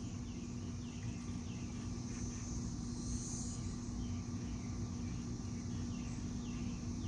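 Quiet ambience inside a vehicle's cabin: a steady low hum under a high, even drone. Faint short chirps repeat throughout.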